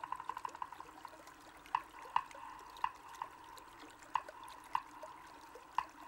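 A fast rattling tremolo fades out in the first second. Then come about six sparse, drip-like plinks over a faint steady tone, a quiet passage of the cartoon's soundtrack.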